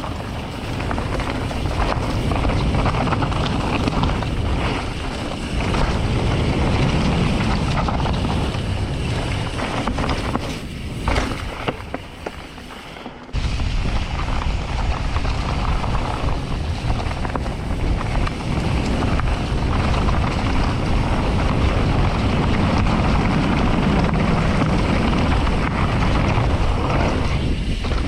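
Wind buffeting the microphone of a camera moving along a mountain-bike trail, a loud steady rumble that drops off briefly about halfway through and comes back suddenly.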